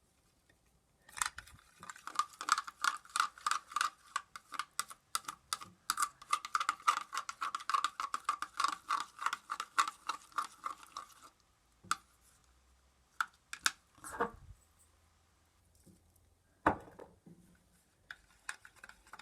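A mixing tool stirring thick gel soap and salt in a bowl, its rapid, regular strokes clicking and scraping against the bowl for about ten seconds, then stopping, followed by a few separate knocks.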